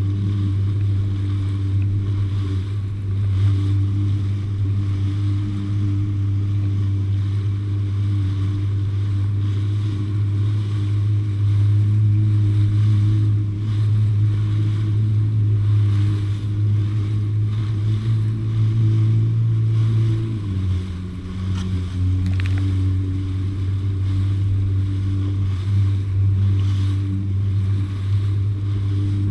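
Jet ski engine running steadily at cruising speed, with water rushing past the hull. About two-thirds of the way through, the engine note dips for a second or so, then picks up again.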